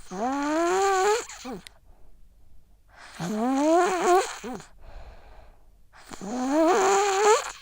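A sick child snoring in sleep: three snoring breaths about three seconds apart, each a pitched tone that rises as it goes, with airy hiss over it, and fainter breaths between them.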